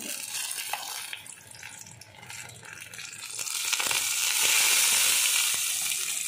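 Metal kitchen tongs clicking and scraping against a nonstick pot as cooked eggplants are lifted out, then a steady hiss starting about three and a half seconds in.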